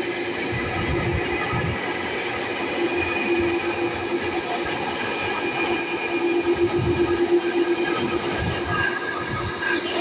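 Airbus A330's twin turbofan jet engines whining steadily at taxi power, a high-pitched whine over a lower hum, growing a little louder near the end.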